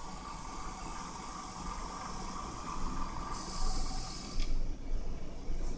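A fan running with a steady whir and hiss, with a sharper hiss for about a second midway and the level wavering. The fan is spinning unevenly, though its blades are not hitting anything.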